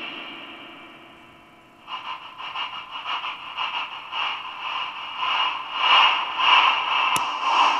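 Unreachable Void noise machine's distorted white noise: it fades away, then about two seconds in returns pulsing from its tremolo, about three pulses a second slowing to about two. A sharp click comes near the end.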